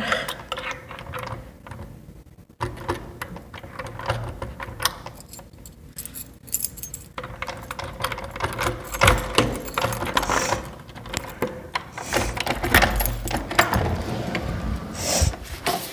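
A bunch of keys jangling and clicking against a door lock in a long, fumbling run of metallic rattles while the door is unlocked.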